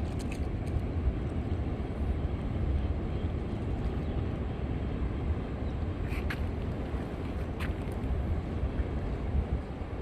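Ocean surf breaking on a reef, a steady low rumble, with wind buffeting the microphone.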